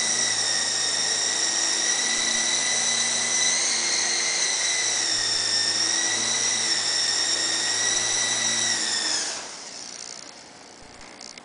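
Coaxial RC mini helicopter's electric motors and rotor blades whining steadily in flight, the pitch wavering slightly. About nine seconds in, the whine slides down in pitch and dies away as the helicopter lands and its motors power down.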